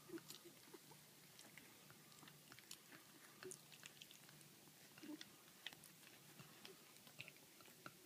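Faint, scattered mouth smacks and small clicks from young cocker spaniel puppies shuffling and mouthing about on fleece bedding, over a faint steady low hum.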